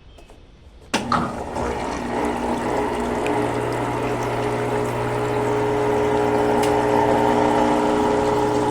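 Consul Facilite 11 kg washing machine switching on suddenly about a second in, then running with a steady hum and rushing water that slowly grows louder.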